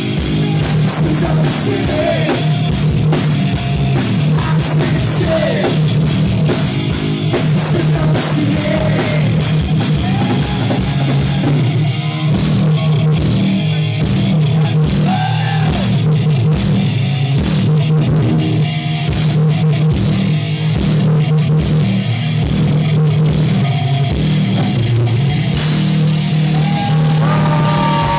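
Live hard rock band playing loud: distorted electric guitar over a pounding drum kit, with held, bending high notes near the end.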